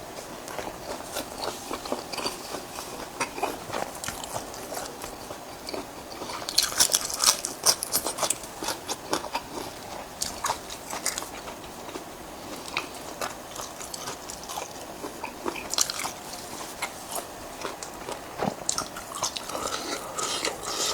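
A person biting and chewing crunchy food, a steady run of crunches with a louder, denser burst of them about six to eight seconds in.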